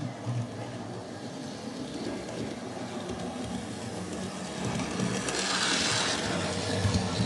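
Model train running on the layout track: the locomotive's small electric motor hums while the wheels rattle over the rails, getting louder from about five seconds in as it comes close.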